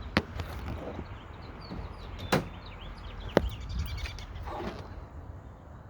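Three sharp metallic clicks from a 2004 Honda Odyssey's hood latch mechanism being worked and reset, the second about two seconds after the first and the third a second later. Birds chirp faintly in the background.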